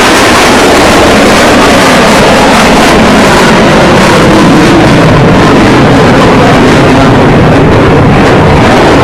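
Continuous, very loud roar of Blue Angels F/A-18 Hornet jet engines as the jets fly out of their break turns, with faint shifts in pitch as they pass.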